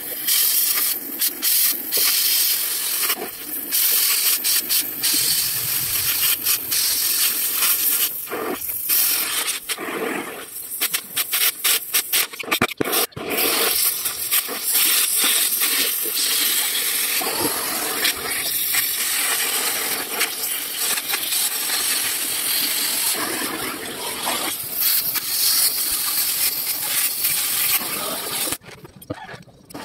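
Oxy-fuel cutting torch hissing steadily as its flame cuts into the steel of a truck chassis rail, broken by a few short pauses, and dying away near the end.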